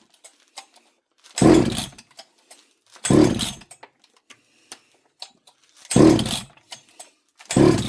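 Two-stroke chainsaw being pull-started with the throttle trigger held: four short bursts a second or two apart as the recoil cord is yanked and the engine turns over without catching.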